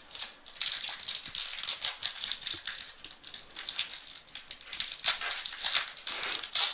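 Trading cards and their plastic packaging being handled: an irregular run of crinkling and rustling as the cards are sorted through.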